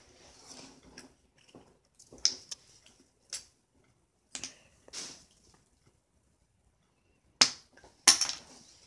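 A sheet of paper being folded and creased by hand on a hard tabletop: scattered short crinkles and taps with quiet gaps between them, and louder ones near the end.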